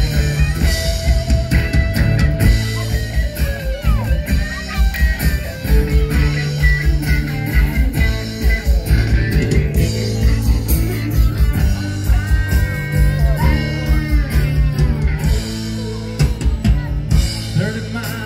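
Live rock band playing an instrumental passage: drum kit keeping a steady beat under bass and strummed acoustic guitar, with a lead line of bending, sliding notes on top.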